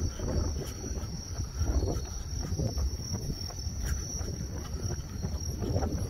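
A steady high trill of night insects, over a low rumble of wind on the microphone and irregular rustling bumps from a handheld phone carried by someone on the move.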